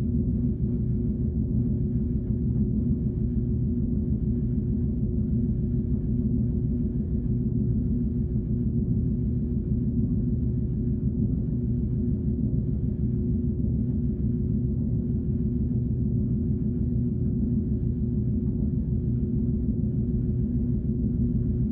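Synthesized sci-fi "alien tone" sound effect: a steady low, humming drone with a single held tone above it. It does not change in pitch or loudness.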